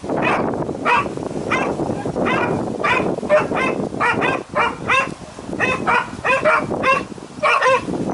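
A dog barking over and over in short, sharp barks, about two a second, over a steady noisy background.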